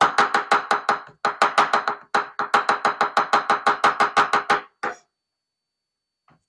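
Knife rapidly chopping on a cutting board while mincing fresh herbs: an even run of about six sharp knocks a second, broken by two short pauses, stopping about five seconds in.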